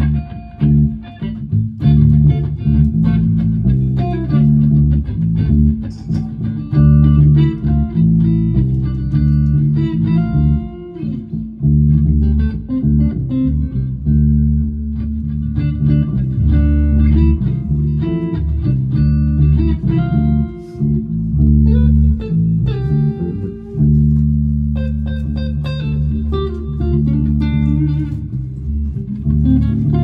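Gear4Music LA Select SSS electric guitar, run through a Korg AX1G and a FoxGear Tweed 55 into a 4x12 cabinet, played together with an electric bass guitar, with no drums. The bass notes are the loudest part, with guitar notes above them.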